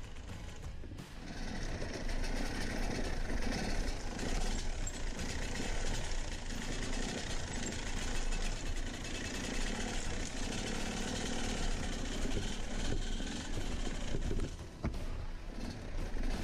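Enduro dirt bike engines running over a rough trail, the throttle rising and falling, louder from about a second and a half in with a brief drop near the end.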